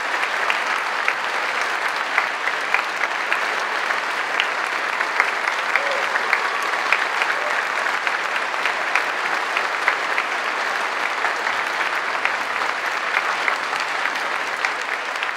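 Audience applauding steadily: a dense, unbroken patter of many hands clapping.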